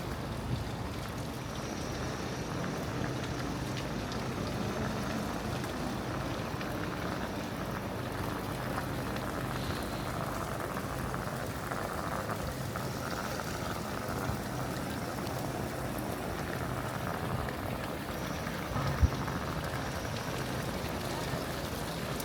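Steady city-square ambience: an even wash of noise with a faint low hum, and one sharp knock about 19 seconds in.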